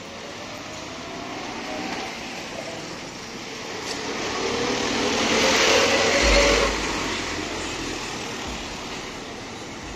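Motor vehicle passing close by on a street: the engine and road noise swell to a peak about six seconds in, then fall away, over steady background traffic.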